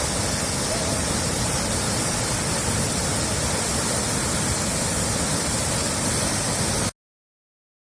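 Waterfall: a steady rush of falling water, even and unbroken, that cuts off suddenly about seven seconds in.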